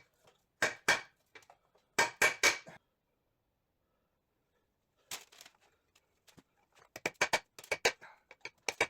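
Steel hammer tapping a pin punch to drive a pin out of a Triumph TR6 gearbox, sharp metallic taps with a ringing note. Two taps, then a quick run of about four, a pause of about two seconds, then scattered taps that speed into a fast series near the end.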